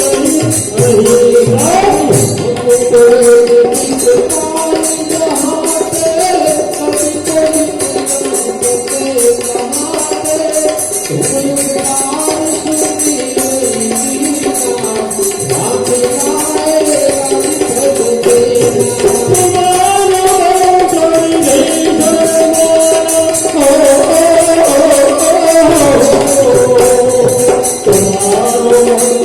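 Devotional bhajan music: a sustained melody line over a fast, steady beat of jingling hand percussion.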